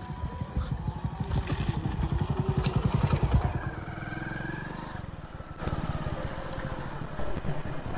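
Hero commuter motorcycle's single-cylinder engine running as the bike rides past, loudest about three seconds in. It eases off for a moment near the middle, then runs steadily again.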